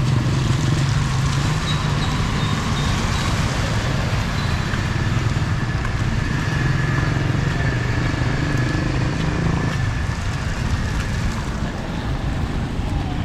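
Motor vehicle engine running with a steady low drone, under an even hiss.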